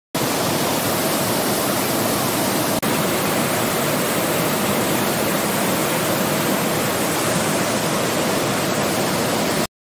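Muddy floodwater of a river swollen by heavy rain rushing and churning over its bed in a steady, loud torrent. The sound breaks off for a split second about three seconds in.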